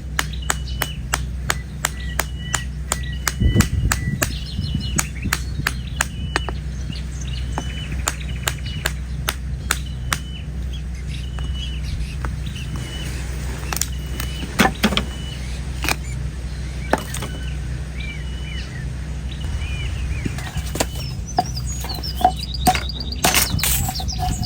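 A sharp knife chopping into an old coconut's hard, dry husk: quick strikes about three a second at first, then fewer and more spread out, with a flurry of harder chops near the end. A bird chirps over and over in the background.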